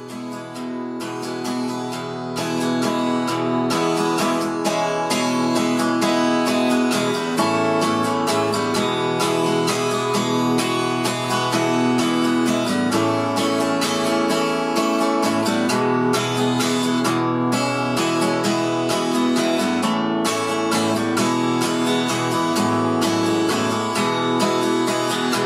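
Twelve-string acoustic guitar strummed in a steady rhythm. It fades in over the first couple of seconds and cuts off abruptly at the end.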